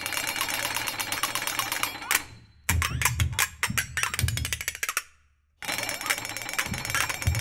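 Two flexatones rattling in dense, fast strokes and rolls over a steady high ringing tone, with low thuds beneath. The texture breaks off twice into brief silences.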